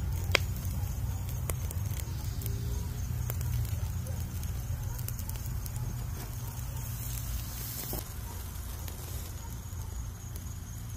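Meat sizzling and charcoal crackling on a grill grate, with scattered small pops and a sharp click just after the start, over a low steady rumble.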